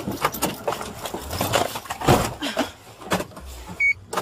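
Rustling and knocking of clothing and gear as a person climbs into a police car's driver's seat. A short electronic beep sounds just before the end, then the car door thuds shut.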